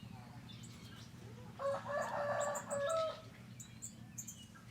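A rooster crowing once, for about a second and a half in the middle, over the short high chirps of small birds and a steady low hum.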